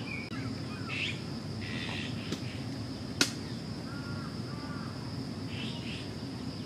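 Steady high-pitched insect trilling with short chirps over it, and a single sharp click about three seconds in.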